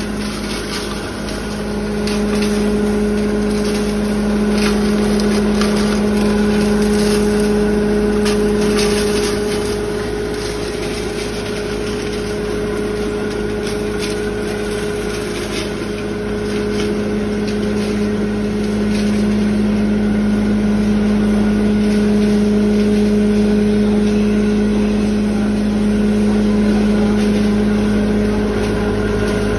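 Coal grinding mill running, driven by its electric motor through a belt: a loud steady machine drone with a constant hum, overlaid with scattered clicks and rattles of coal being ground, thickest in the first ten seconds.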